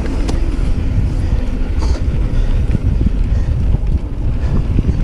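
Mountain bike riding down a dirt trail: steady wind rush on the microphone over the low rumble of the tyres on dirt, with scattered clicks and rattles from the bike.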